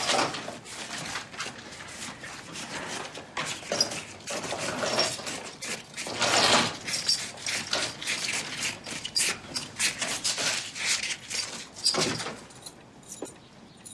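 Small valuables such as jewelry being handled and counted: a continual run of light clinks, clicks and rattles of hard objects against each other and a container.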